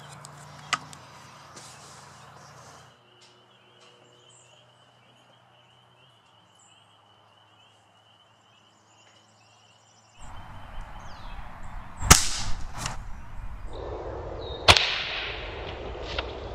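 Plastic packaging of a giant gummy bear crinkling and clicking as it is handled. After a quiet stretch come two sharp shots from a Walther Falcon Hunter .25 pellet rifle, about two and a half seconds apart, over outdoor background noise.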